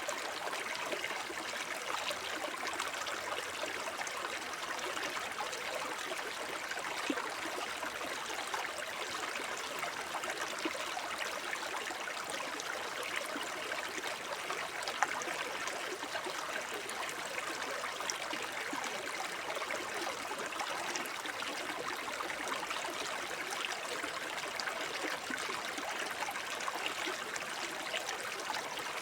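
Small forest brook babbling over stones, a steady burble of running water with little splashes and drips throughout.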